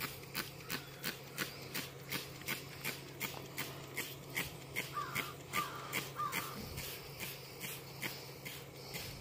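Plastic trigger spray bottle being pumped rapidly, giving short hissing spurts of toilet bowl cleaner about three times a second onto an aluminum pontoon. A few short calls sound in the background around the middle.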